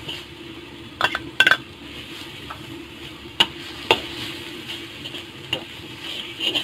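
Metal spatula scraping and clacking against a wok as shrimp, egg and scallions are stir-fried, over a steady sizzle. Several sharp clacks of the spatula on the pan, two close together about a second in and two more a little past the middle.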